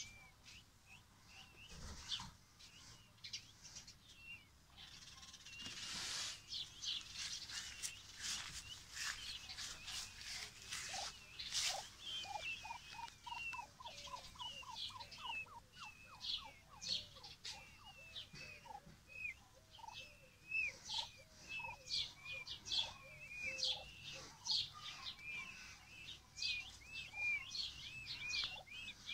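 A brood of peachicks and chicken chicks peeping steadily, many short high chirps a second. About halfway through, a lower, quicker run of calls joins in, and there is some rustling in the grass.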